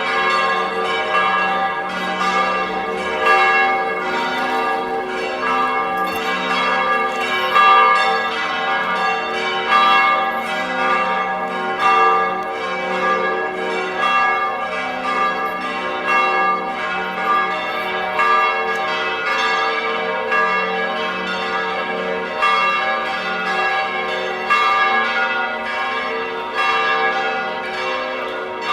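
Church bells pealing: several bells of different pitch struck over and over in quick, unbroken succession, their tones ringing on and overlapping.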